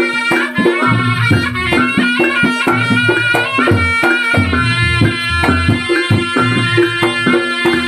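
Javanese reog-style traditional music: a sustained reed-like melody over steady hand-drum strokes and a repeating deep bass pattern.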